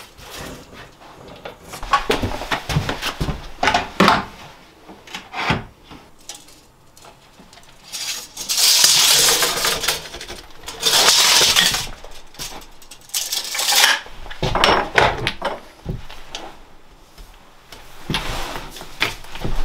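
Wood being handled and worked by hand: scattered knocks and rubbing, with two long rasping strokes a little past the middle.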